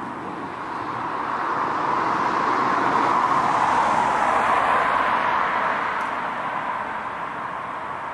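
Noise of a passing vehicle swelling to a peak about three to five seconds in and then fading away.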